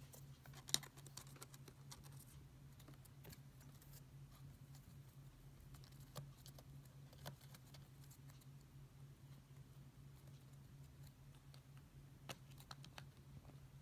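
Scattered light taps, clicks and scratches of a kitten pawing at a round wooden ball-track cat toy with a cardboard scratching pad, the sharpest click under a second in. A faint steady low hum runs underneath.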